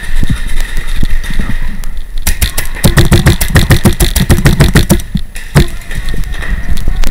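Paintball markers firing in quick strings of sharp cracks, thickest from about two to five seconds in, with dull low thuds under the heaviest firing.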